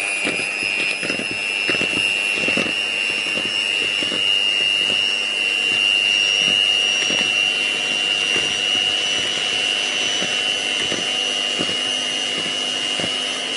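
Incontro electric mixer running at one steady speed, its motor giving a steady high-pitched whine, as its beaters whisk eggs and sugar in a bowl. Irregular soft knocks come through under the whine.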